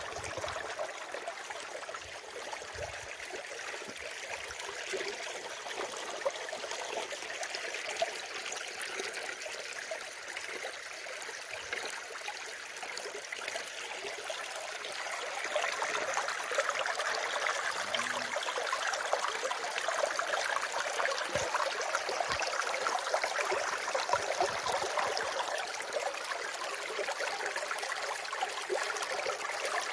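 Running water flowing steadily, becoming somewhat louder about halfway through.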